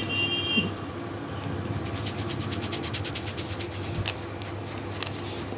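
Hands rubbing briskly over hair and skin during a head massage, with a run of quick, even strokes in the middle and a few sharper clicks near the end, over a steady low hum.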